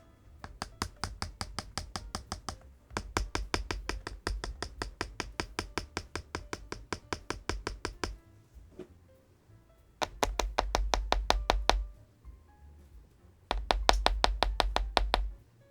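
Keystrokes on a GLITTER65 HE Pro magnetic-switch keyboard: rapid, evenly spaced clicks with a low thud, about six a second, in runs of a few seconds with short pauses, over quiet background music.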